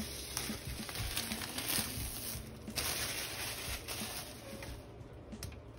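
Hands with long acrylic nails handling an iPad Pro's cardboard retail box: rustling and scattered light taps and scrapes on its surface, dying away near the end.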